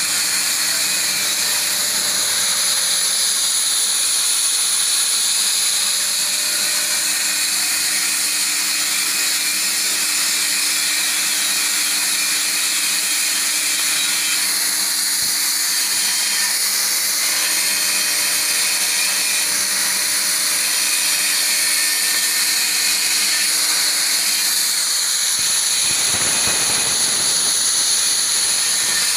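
Air plasma cutter torch cutting through a steel sheet: a steady, loud hiss of the arc and air jet, with a faint steady hum underneath.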